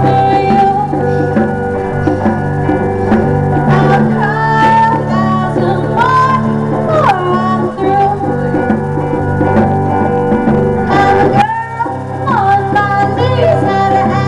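A live band: a woman singing with electric guitar accompaniment, and congas played by hand alongside, with steady strummed chords and frequent drum strikes under gliding vocal lines.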